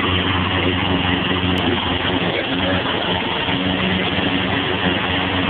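Small gasoline lawn-equipment engine running steadily at a constant speed, a continuous hum with no revving.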